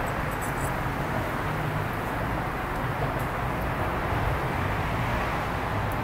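Steady buzzing hum of a mass of honey bees from an opened, full hive.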